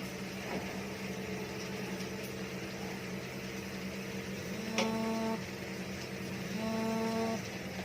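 A steady mechanical hum with a faint hiss. Twice, around five and seven seconds in, a short, even, pitched tone rises above it.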